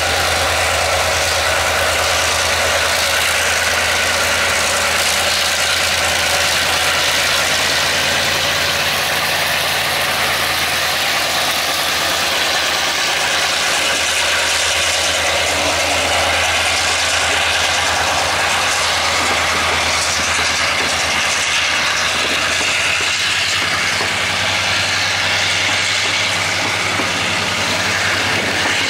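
Two EMD G22-CU diesel-electric locomotives running under power as they pull a freight train away slowly past close by, a steady low diesel engine sound. Near the end the freight wagons roll past behind them.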